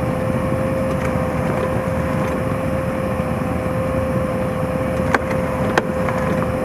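Land Rover Defender 90 V8 engine running under load, driving a Milemarker H12 hydraulic winch through its power steering pump, with a steady whine from the hydraulic drive as it hauls a heavy truck. Two sharp clicks come near the end.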